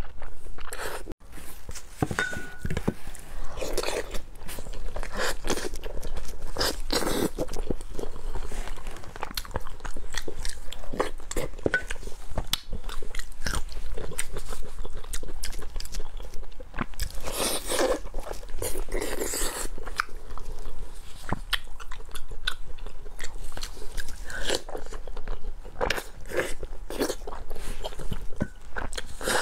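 A person eating braised pork close to a clip-on microphone: continuous biting and chewing with wet mouth and lip smacks and occasional crunchy bites. There is a brief gap about a second in.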